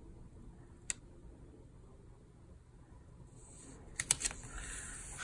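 Paper sticker being peeled from its backing sheet and handled: a single light tick about a second in, then papery rustling and crinkling with a few sharp clicks near the end.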